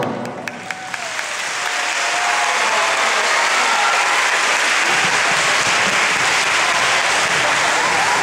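Audience applauding. It starts with a few scattered claps and swells to steady applause within about two seconds.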